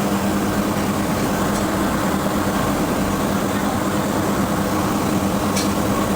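Steady drone of forge-shop machinery with a low hum, with a faint light tick about a second and a half in and another near the end.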